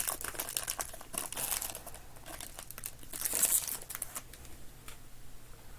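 Plastic wrapper of a thick trading-card pack crinkling as it is opened and the cards handled, in irregular rustling spells that fade toward the end.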